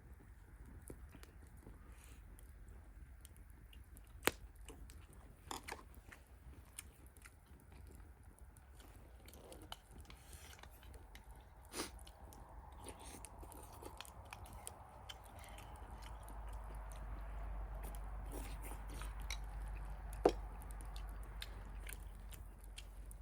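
A person chewing and eating a meal, with scattered sharp clicks and taps; the loudest come about four seconds in and near the end.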